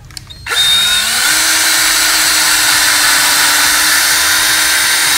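Cordless drill with an extension bit driving a screw into the plastic effluent-filter housing. The motor starts about half a second in, speeds up a little, then runs steadily.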